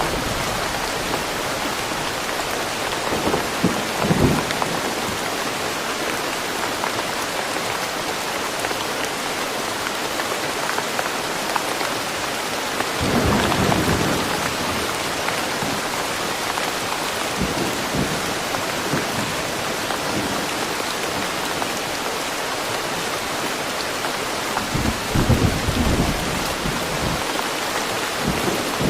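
Steady rain falling in a forest, with low rumbles of thunder rolling in three times: about four seconds in, around the middle (the longest), and near the end.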